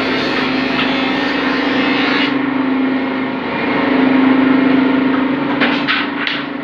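A steady mechanical hum with one constant low pitch, swelling a little about four seconds in, with a few short clicks near the end.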